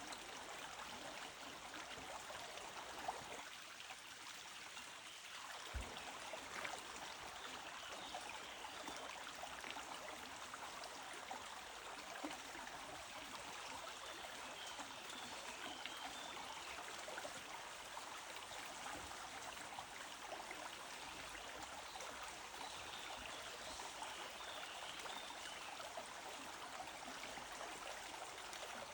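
A stream running steadily, a faint, even rush of flowing water.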